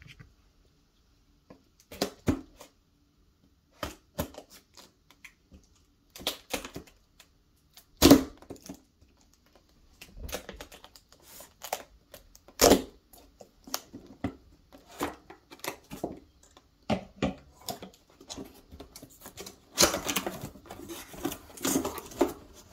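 A cardboard retail box being handled and opened by hand: irregular taps, knocks and scrapes of cardboard. There is a louder knock about eight seconds in and another near thirteen seconds, then a denser run of scraping and rustling near the end.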